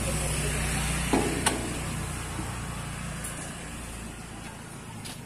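Yamaha Byson 150cc single-cylinder engine idling with a steady low hum that fades away about three and a half seconds in. Two sharp clicks come about a second in.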